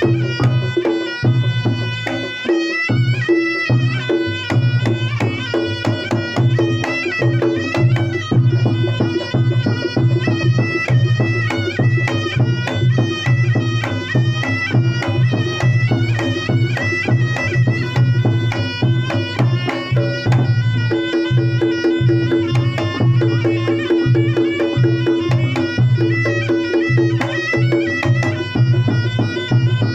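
Reog Ponorogo gamelan music: a slompret (Javanese reed shawm) plays a nasal, ornamented melody over kendang hand drums and a steady low held tone.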